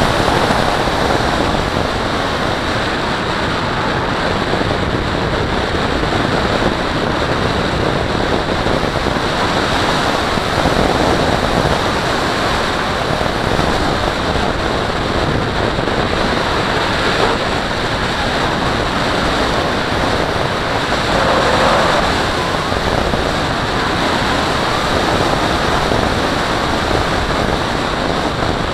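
Steady rush of wind over the onboard camera on a radio-controlled scale Salto glider's wing in flight, swelling briefly about three-quarters of the way through.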